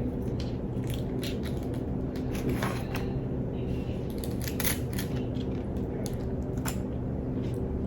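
Scattered small clicks and crinkles of fast-food packaging being handled, as a dipping-sauce cup is opened and the food readied for dipping, over a steady low hum.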